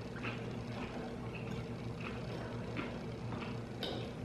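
Quiet eating: faint, scattered clicks of forks against plates, over a steady low hum.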